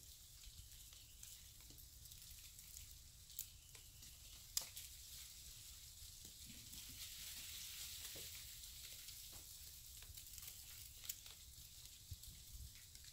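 Near silence: a faint steady hiss with a few sharp, scattered ticks.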